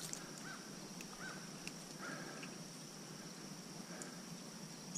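Outdoor ambience: a steady high-pitched insect drone, with a bird's short chirps repeating a few times in the first couple of seconds, over a faint hiss with a few light ticks.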